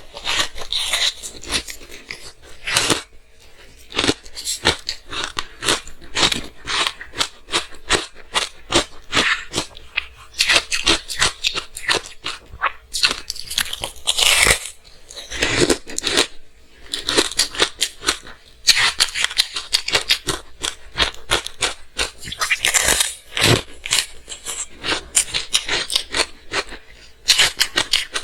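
Frozen matcha green tea ice being bitten and chewed close to the microphone: a steady run of crisp, rapid crunches, broken by several louder bites.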